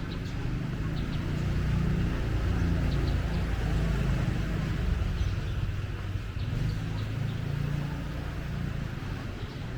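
Street traffic: a motor vehicle's engine rumbling close by, swelling and easing again as it passes.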